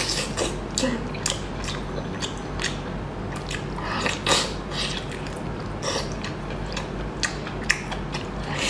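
Close-miked mouth sounds of a person eating sauced seafood by hand: irregular wet clicks and smacks of sucking and chewing, over a steady low hum.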